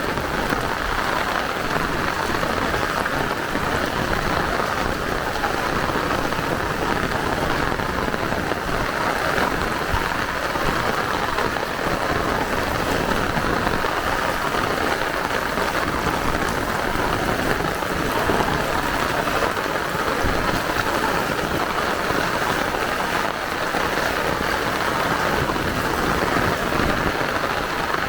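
Heavy rain falling steadily and splashing on hard surfaces, a dense even hiss with no letup.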